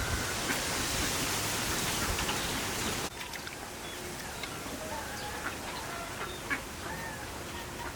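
A steady rushing hiss for about three seconds that stops abruptly. Then farmyard poultry call in many short, scattered calls over quieter background ambience.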